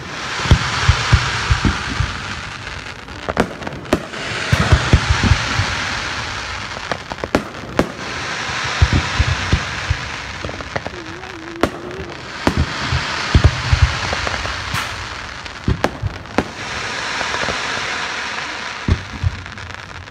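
Aerial fireworks going off: many sharp bangs of shells bursting at irregular intervals, with swells of crackling hiss a few seconds long as showers of glittering stars burn out.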